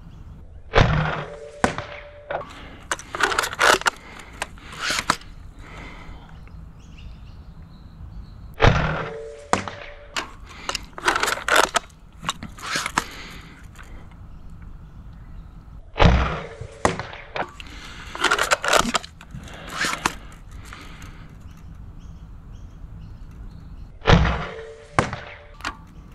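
Sabre M20S spring-powered foam-dart sniper blaster with a 26 kg spring firing four shots about eight seconds apart. Each shot is a sharp crack with a brief ringing tone, followed by a run of clicks and clacks as the blaster is worked for the next shot.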